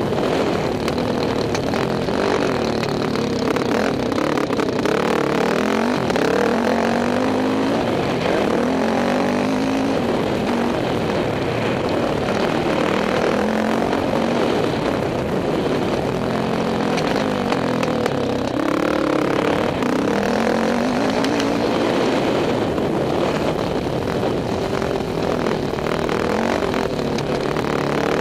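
Motocross dirt bike engine heard from on board while riding the track, revving up and down continuously, its pitch rising and falling again and again with the throttle and gear changes.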